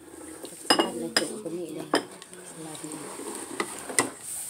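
Cutlery and ceramic dishes clinking on a dinner table, about five sharp clinks with a brief ring, the loudest about a second in.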